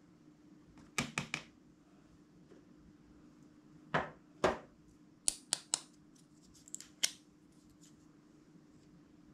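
Short plastic clicks and taps in a few quick clusters, as small plastic toy figures and a clear plastic tub are handled.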